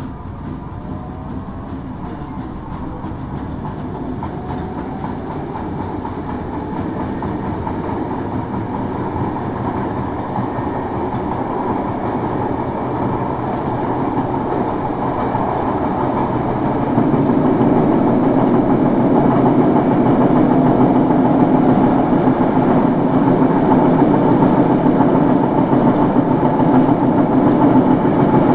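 Tokyo Metro 01 series subway car running, heard from aboard car 01-230, its running noise and rail clatter growing steadily louder and stepping up about two-thirds of the way through. The car has wheel flats whose abnormal noise all but drowns out the traction motors' brush sound.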